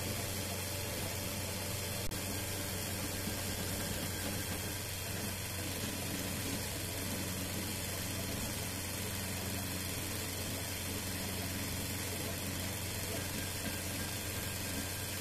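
Open-frame 3D printer running a print: a steady hum and fan whir with stepper-motor tones shifting as the print head moves. One sharp click about two seconds in.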